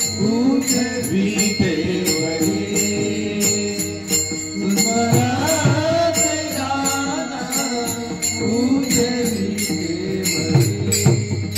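A man sings a long, wavering melodic line of a Marathi varkari devotional song, without clear words, over a steady held drone, while small hand cymbals (taal) are struck in a steady rhythm, about three strokes a second.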